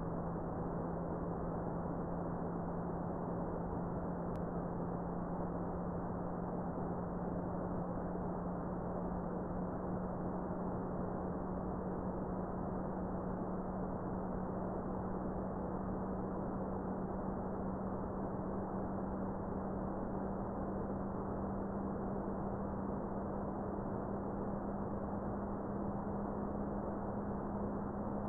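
Thuraya 2 satellite's C-band beacon carrier, demodulated in upper sideband by a software-defined radio: one low steady tone set in receiver hiss, slowly rising in pitch as the carrier drifts.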